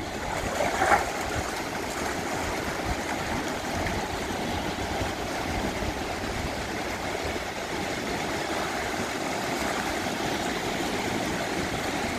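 Steady driving noise of a Jeep moving along a sandy beach track: engine and tyre noise mixed with wind, at an even level throughout, with a short higher sound about a second in.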